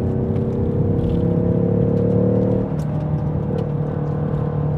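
Turbocharged 2.3-litre four-cylinder of a 2021 Ford Mustang EcoBoost pulling under acceleration, heard inside the cabin. Its note rises steadily, then drops as the 10-speed automatic upshifts about two and a half seconds in, and holds steadier after.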